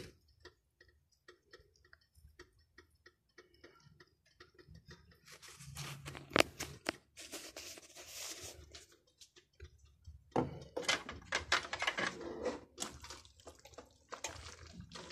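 Hands handling sliced ham from a glass bowl and dropping it onto creamy spaghetti in a pot, then a spatula starting to stir it in: soft, scattered wet clicks and crackles that grow busier about five seconds in, with one sharp click about six seconds in.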